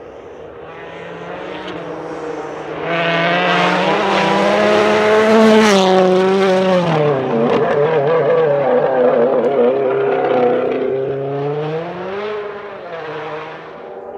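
2017 Ford Fiesta WRC rally car's 1.6-litre turbocharged four-cylinder engine accelerating hard, revs rising through the gears as it approaches. It is loudest about five seconds in, and the pitch drops as it passes. Near the end the revs climb again as it pulls away.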